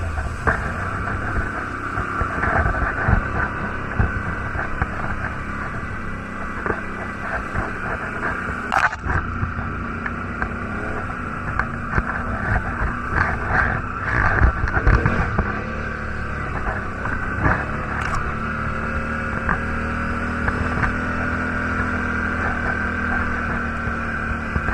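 ATV (quad bike) engine running steadily as it is ridden along a rough, muddy trail, with scattered knocks and rattles from the machine jolting over bumps.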